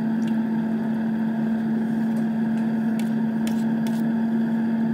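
A steady, even mechanical hum on one low tone, with a few faint light clicks from about three seconds in as mushroom pieces slide from a plastic colander into a frying pan.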